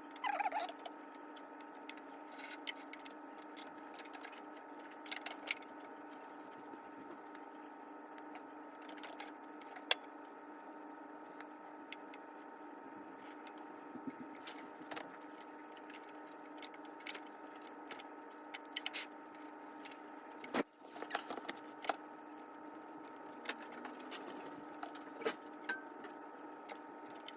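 Faint scattered clicks and small taps of hands handling a Brother 1034DX overlocker while threading it, one sharp click about ten seconds in standing out, over a steady background hum.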